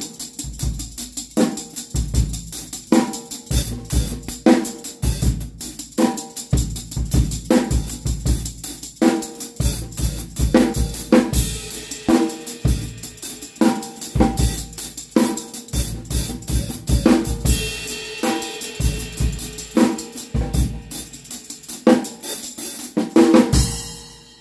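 Drum kit played in a steady groove of bass drum, snare and cymbals, with the steel jangles of a Vater stick-mounted tambourine shaking on the stick strokes. The playing stops near the end.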